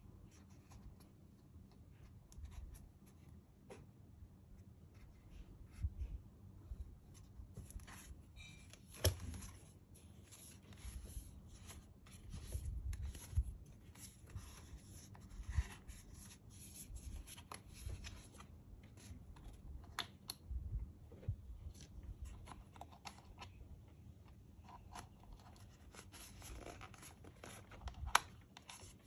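Faint handling of a hollow plastic action figure: scattered small clicks and soft rubbing as fingers grip it and move its jointed limbs, with occasional low bumps.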